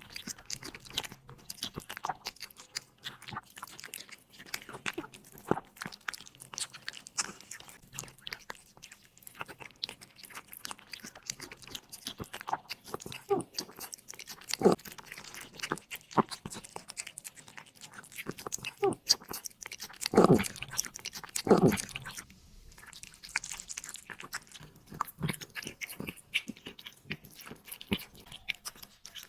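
A cat chewing crunchy food, a dense run of small crunches. Two louder knocks come about two-thirds of the way through.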